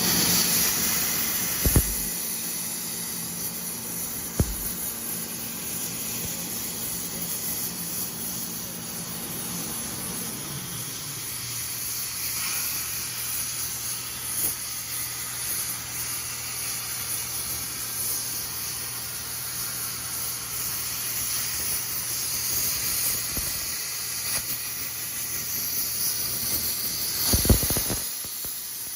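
Hypertherm Powermax 125 plasma torch cutting steel on a CNC table: a loud, steady hiss, with a low machine hum under it and a few sharp cracks, two early on and one near the end.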